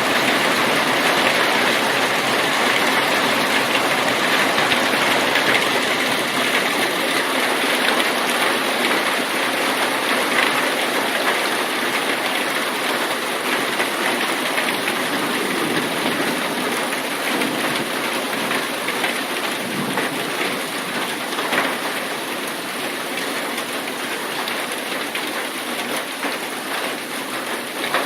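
Heavy rain pouring down, a dense steady hiss that eases slightly toward the end.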